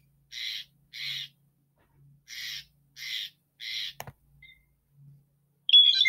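Blue jay's harsh rasping 'growl' call: five short grating notes in two groups, each about a third of a second long. A sharp click follows about four seconds in, and near the end a clear, high whistled note begins.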